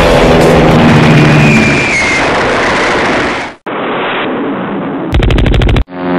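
Stock battle sound effects: loud, dense gunfire and explosions over a steady low drone, stopping abruptly about three and a half seconds in. Near the end comes a short, rapid rattle like machine-gun fire.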